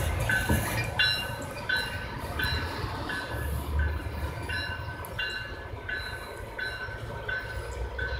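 Tail end of a freight train of refrigerated boxcars rolling past and away, with a steady low rumble from the wheels. A high ringing tone repeats about every two-thirds of a second throughout.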